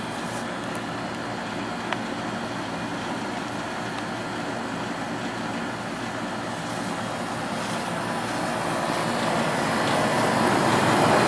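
Steady road-traffic noise that grows louder over the last few seconds.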